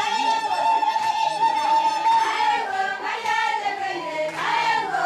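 Group of women singing together, with one high note held for about two and a half seconds before it slides down.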